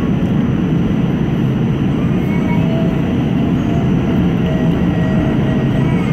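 R46 subway car running at speed through a tunnel, heard from inside the car: a steady, loud rumble of wheels on rail, with faint short high tones coming and going over it.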